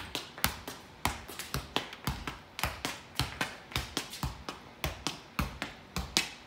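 A football being kept up with the feet: a steady run of sharp kicks, about three touches a second, as the ball is juggled without dropping.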